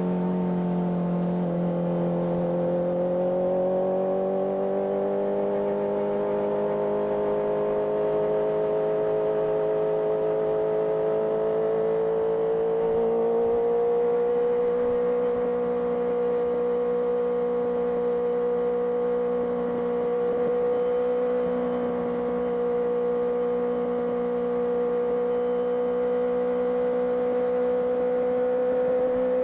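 Honda CBR650R inline-four engine running through an IXIL IXRACE aftermarket exhaust on the move. The pitch drops briefly near the start, rises gradually over about a dozen seconds, then holds steady at a cruise.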